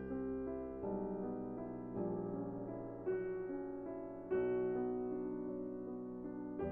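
Background music: a gentle piano melody with notes changing about once a second.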